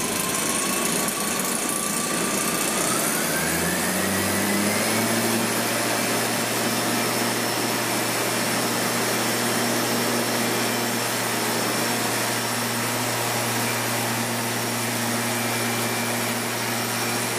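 Gas backpack leaf blower engine revving up over the first few seconds, then running steadily at high speed. It is working as the lift blower of a plywood hovercraft, pushing air down into the skirt.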